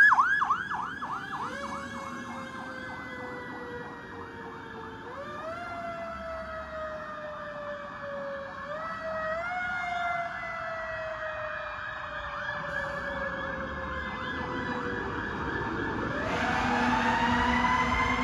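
Fire engine siren: a rapid yelp gives way to a long, slow wail that sinks in pitch and is pushed back up twice as the truck moves away. Near the end a louder siren wail rises and falls.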